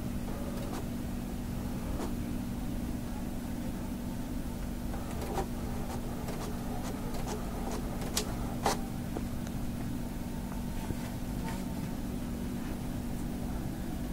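Printer running with a steady hum while a printed page feeds out, with a few light taps and one sharper click about eight and a half seconds in.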